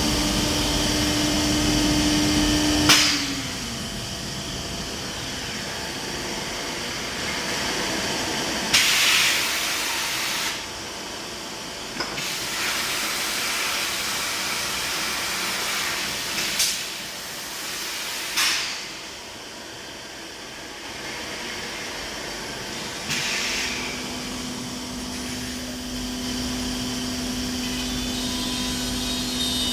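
Biesse CNC router's spindle running with a steady high hum that winds down about three seconds in and starts up again, at a slightly lower pitch, near the end. In between come several short, loud hisses of compressed air.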